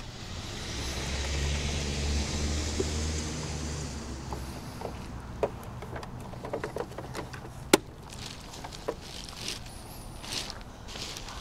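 A car passes by, its engine hum and tyre hiss swelling and then fading over the first few seconds. Then come scattered light clicks and knocks of a plastic toy truck being handled, with one sharp click near the middle.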